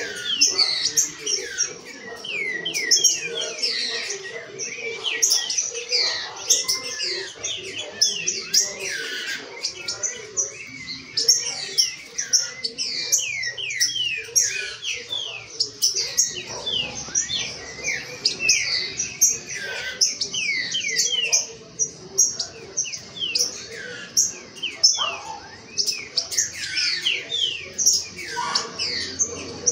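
Caged green-winged saltators (trinca-ferro) singing and calling in a warm-up, stirred up by hearing each other: a dense, continuous stream of quick descending chirps and whistled notes.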